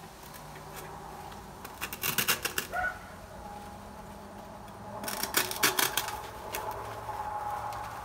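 Artificial fall leaves and dry sheet moss rustling and crackling as they are pushed and pulled through a wire basket, in two bursts: about two seconds in and again around five to six seconds in.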